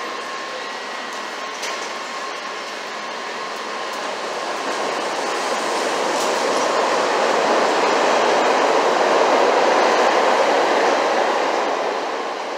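CTA 2600-series Budd rail cars pulling out and passing close by: the wheels and motors run louder as the train gathers speed, loudest about nine to ten seconds in, then fade as the last car goes by.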